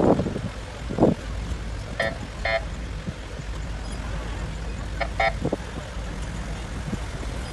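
Vehicle horns giving short double toots, twice, over a steady low outdoor rumble, with a few dull thumps.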